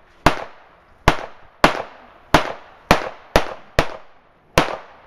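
A Saiga 12 semi-automatic 12-gauge shotgun fired rapidly, eight sharp shots about half a second apart, each trailing off in a short echo.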